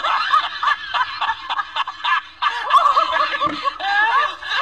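Laughter, short snickering and chuckling with several laughs overlapping.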